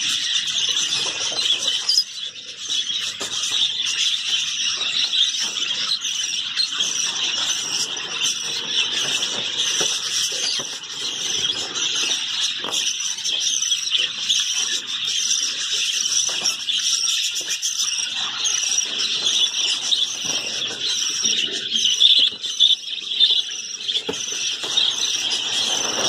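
Many budgerigars chattering and chirping together without pause, a dense high-pitched warble, with a few louder calls near the end.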